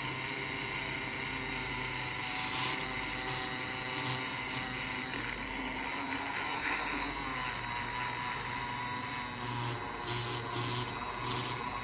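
Uniblend DC-25 mains-powered handheld frother running steadily with a constant motor whine. Its whisk is spinning in a glass of coffee and milk and whipping it into a thick foam.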